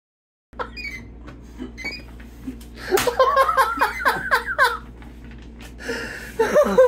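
A man laughing in a run of short bursts for about two seconds, over a steady low hum that comes in after half a second of silence.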